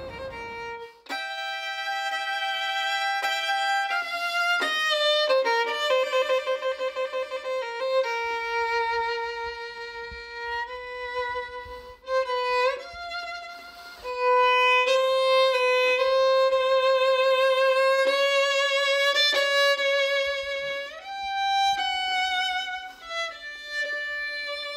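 Solo violin playing a slow melody of long held notes with wide vibrato and occasional sliding pitch changes between notes, starting about a second in.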